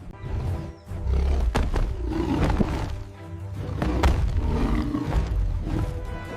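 Background music with a large animal roaring and growling over it in several loud surges.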